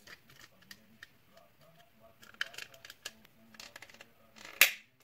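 Small scattered clicks and taps of parts and tools being handled, with a louder short scrape or clatter near the end.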